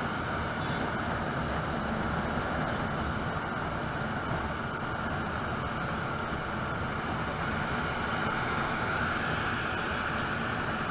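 Steady wind rush and road noise of a moving two-wheeler, picked up by a microphone mounted on the bike as it rides along.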